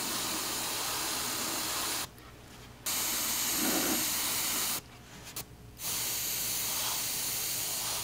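Gravity-feed airbrush spraying paint in three steady hissing bursts of about two seconds each, with short pauses between.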